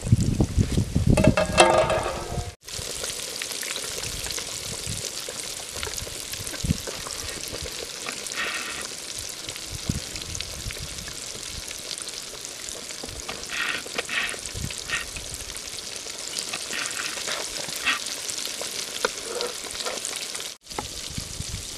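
Coated chicken pieces deep-frying in a pot of hot oil: a steady crackling sizzle with scattered small pops. The sound breaks off abruptly twice, once early and once near the end.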